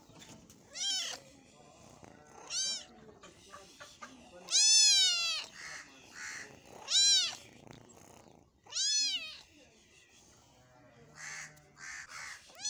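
Kitten meowing: five high calls that rise and fall in pitch, about two seconds apart, the middle one the longest and loudest.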